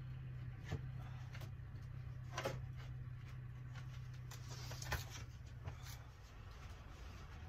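Split red oak firewood being laid down on a slatted wooden floor: four or five scattered, dull wood-on-wood knocks as pieces are set in place.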